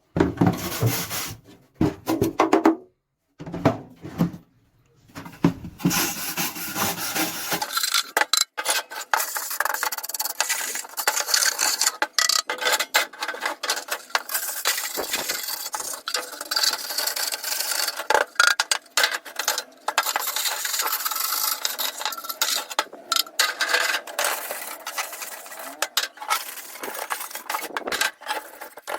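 Hand abrasive scraping and rubbing on the rusty toolbox: short choppy strokes at first, then from about a quarter of the way in a denser, hissy run of rapid scraping strokes broken by brief pauses.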